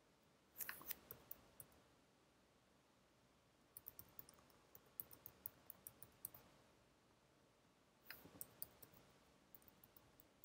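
Faint typing on a computer keyboard: three short bursts of quick keystrokes with pauses between.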